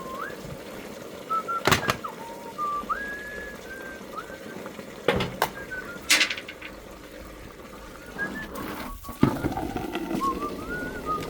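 A person whistling a slow tune, with a few sharp knocks and clatters in between.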